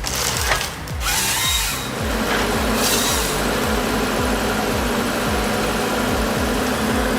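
A machine running steadily, with a brief rasping hiss about a second in, over background music with a regular bass beat about twice a second.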